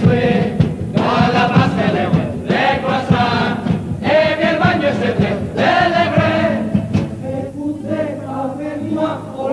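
Carnival chorus of male voices singing together to strummed guitars and a drum beat, a little quieter in the last couple of seconds.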